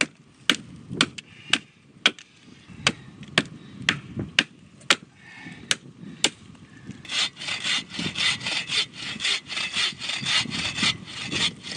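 Machete chopping into a wooden stake to carve a wedge, about two sharp strikes a second. About seven seconds in it gives way to a hand-held folding saw cutting through wood in quick back-and-forth strokes.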